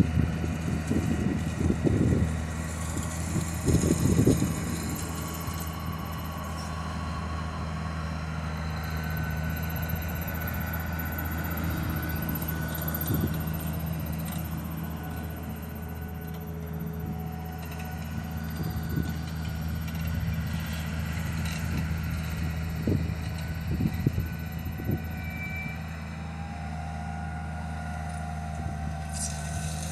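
JCB Fastrac tractor's diesel engine running steadily under load as it pulls a Kuhn maize precision seed drill through the field, a steady low hum. A few low bumps come in the first four seconds and again about 23 seconds in.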